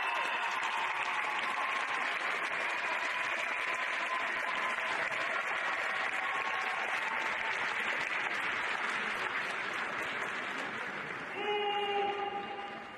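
Audience applauding and cheering for about eleven seconds, then dying away, with a short pitched call near the end.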